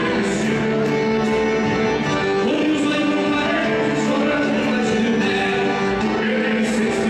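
Gaúcho folk music for a traditional dance, with singing and instruments holding long, steady notes.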